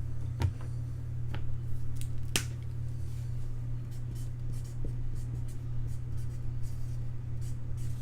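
Trading cards being handled and sorted by hand: soft sliding and rustling, with several sharp clicks and taps, the loudest about two and a half seconds in. A steady low hum runs underneath.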